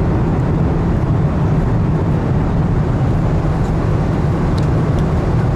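Steady cabin noise of a Boeing 747-400 airliner in flight: engine and airflow noise making a loud, even rumble, heaviest in the bass.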